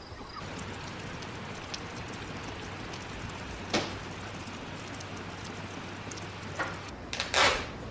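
Light rain falling: a steady, even hiss, with a single sharp click a little before halfway and a louder brief rustle near the end.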